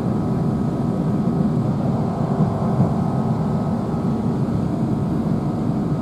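Great Western Railway Class 165 diesel multiple unit running, heard from inside the carriage: a steady low rumble of underfloor engine and rail noise, with a faint steady whine.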